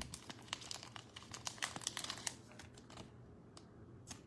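Faint crinkling and clicking of a trading card and a soft plastic card sleeve being handled. There is a quick run of small clicks for the first two seconds or so, then a few scattered ones.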